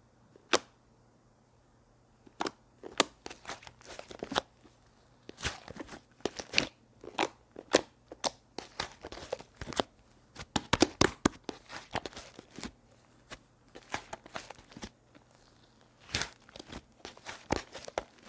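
Clay slime worked by hand, giving irregular sharp crackling pops and clicks in clusters. The clicks begin after a short pause near the start.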